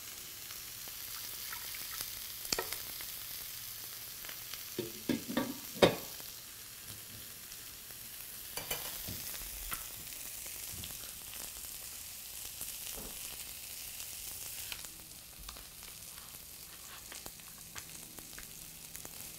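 A frying pan of summer squash and beans sizzling steadily on the stove, with a few clicks and knocks of cooking utensils, the loudest about six seconds in.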